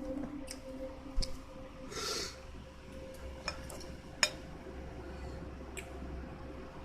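Scattered light clicks and clinks of kitchen utensils and dishes, with a short rustle about two seconds in, over a faint steady hum.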